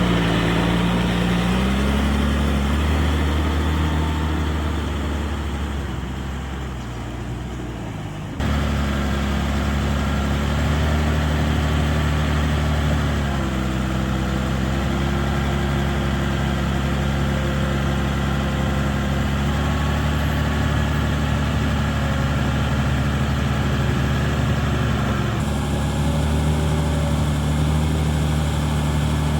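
Heavy diesel engines of earthmoving machinery running steadily, their pitch shifting a little. The sound changes abruptly about eight seconds in and again near the end.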